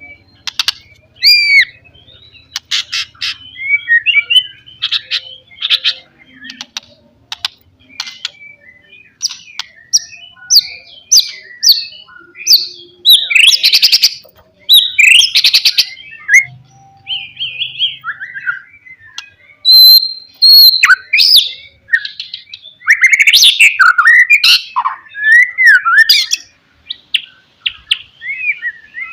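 White-rumped shama (murai batu) singing a fast, insistent song of varied clear whistles, sharp quick notes and rapid trills, phrase after phrase with only short pauses.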